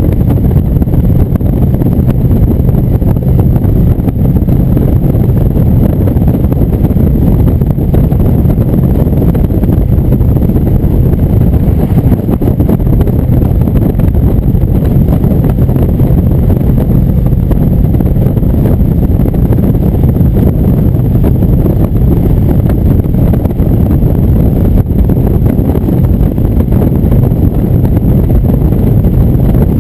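Indian V-twin motorcycle running steadily at highway cruising speed, its low engine note mixed with wind rushing over the microphone.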